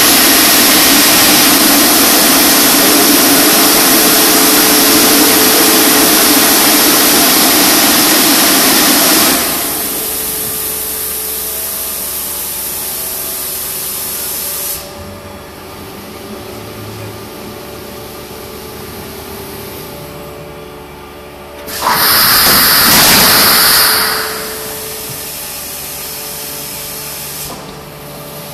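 Geiss thermoforming machine at work: a loud rush of hissing air that lasts about nine seconds and then drops to a quieter, steady machine hum, with a second loud burst of hissing air of about two seconds near the end.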